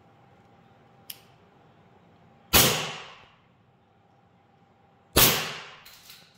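Army Armament R601 Combat Master green-gas blowback airsoft pistol fired twice, about two and a half seconds apart, each shot a sharp report with a short echo. A light click comes about a second in, and a smaller one follows the second shot.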